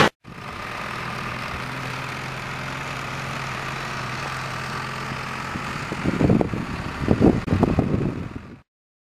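An engine idling steadily, with a few louder low rumbles around six and seven seconds in; the sound cuts off shortly before the end.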